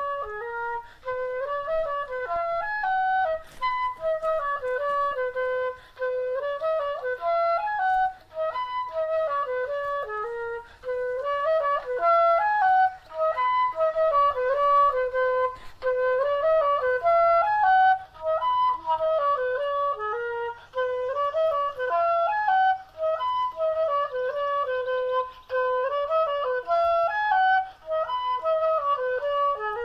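Background music: a flute playing a flowing melody that keeps coming back to the same short phrase, with brief pauses between phrases.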